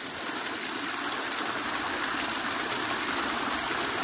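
Water pouring steadily from the stone spouts of a traditional Nepali dhunge dhara (stone waterspout) and splashing into the stone channel below.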